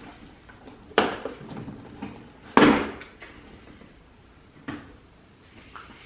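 Socket set being handled: a sharp click about a second in, a louder clatter about two and a half seconds in, and a lighter knock near the end.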